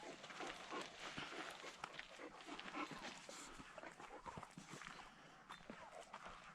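A pet dog making faint sounds, heard among soft, irregular clicks and rustles.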